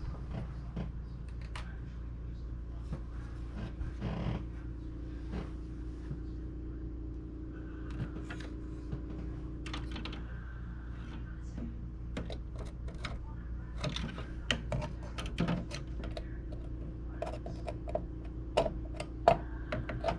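Scattered light clicks and taps of computer parts being handled during a graphics card swap, over a steady low hum, with sharper clicks near the end.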